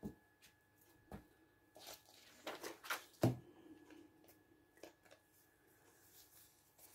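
Light handling sounds on a craft table: a few short knocks and taps as a sheet of paper and a glue stick are set down, with soft paper rustling. The sharpest knock comes about three seconds in.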